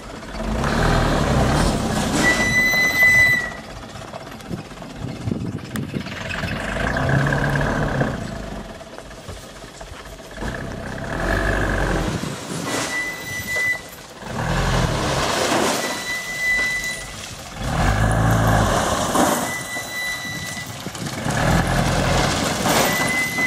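Mitsubishi Canter dump truck's diesel engine revving in repeated surges as the truck reverses, loaded with stone, and then raises its tipper bed. Short high-pitched beeps come now and then.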